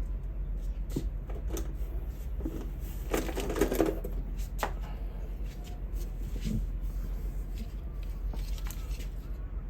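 Scattered small clicks and rattles of plastic and metal parts being handled as a Sony pocket radio is taken apart, busiest about three seconds in, over a steady low hum.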